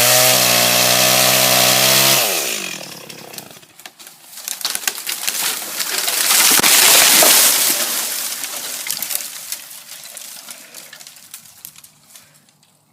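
Stihl Farm Boss two-stroke chainsaw running at full throttle through the felling cut, then winding down as the throttle is released about two seconds in. A couple of seconds later a swelling rush of cracking and crashing, loudest about seven seconds in, is the tree coming down; it fades into scattered crackles.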